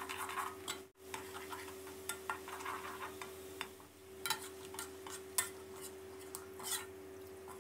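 Metal spatula scraping and clicking irregularly against a wok while sliced garlic fries in oil, over a faint sizzle and a steady low hum.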